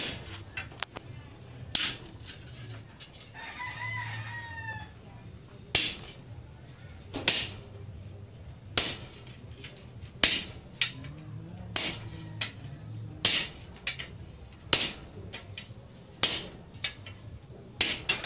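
Hand forging of red-hot leaf-spring steel on an anvil: a heavy sledgehammer blow about every one and a half seconds, with lighter hand-hammer taps between. A rooster crows once, a long falling call, about three to five seconds in.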